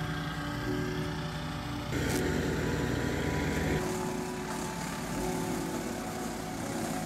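Mighty Mac chipper-shredder's engine running. About two seconds in it turns louder and harsher for nearly two seconds as a branch is fed through and shredded.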